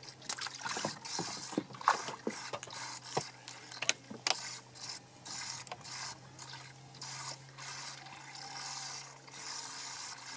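Fishing tackle being handled: sharp clicks and rattles of a spinning rod and reel in the first few seconds, then softer repeated mechanical rasping, over a steady low hum.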